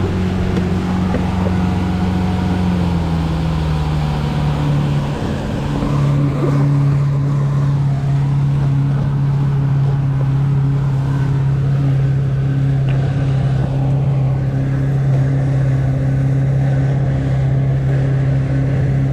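Boat motor running steadily under way; its pitch drops a little about three to five seconds in, then holds.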